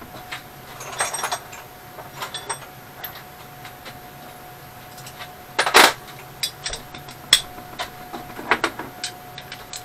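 Scattered metallic clinks and rattles of hand tools being picked up and set down, the loudest clank about six seconds in, over a faint steady tone.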